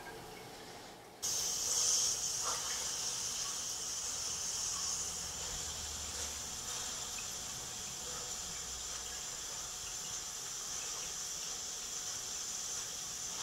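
Ghee sizzling in a hot nonstick frying pan under a water chestnut flour and potato paratha. It is a steady, high hiss that starts suddenly about a second in.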